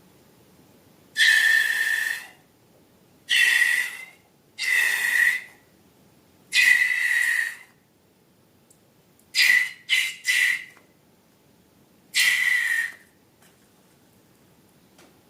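Air squealing out of a balloon's neck in eight short bursts, each a high steady whistle with a hiss: four of about a second, three quick ones in a row, then one more.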